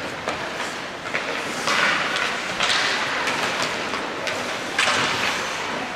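Ice hockey play: skate blades scraping and hissing on the ice in several bursts, with sharp clacks of sticks and puck.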